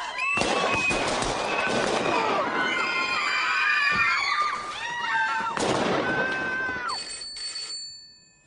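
Several men shouting and yelling over one another, with a few sharp bangs. About seven seconds in, as the shouting dies away, a telephone bell starts ringing.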